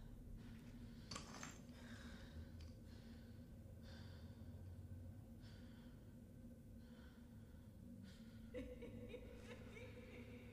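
Near silence: a person's faint breathing, soft breaths every second or so, over a low steady hum.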